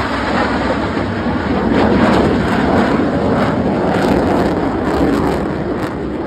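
Jet engine roar from a pair of F/A-18 Super Hornets flying past low in formation, loudest about two seconds in and easing slightly toward the end.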